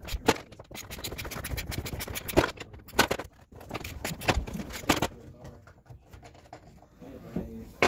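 Quarter-inch ratcheting wrench with a 10 mm hex drive bit clicking in quick back-and-forth strokes as it unscrews a dashboard bolt. The clicking thins out after about five seconds into quieter handling, with one sharp click near the end.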